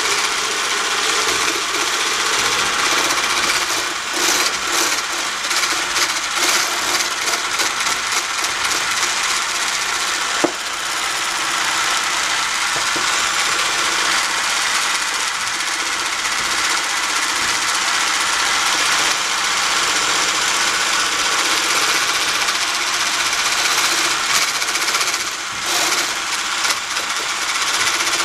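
Electric stick blender with a wire whisk attachment whipping cream in a tall plastic beaker, its motor running steadily and noisily.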